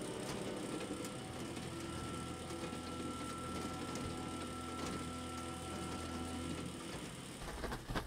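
Steady mechanical ticking and whirring, with a held low hum and a few sustained tones beneath, part of an end-title sound effect.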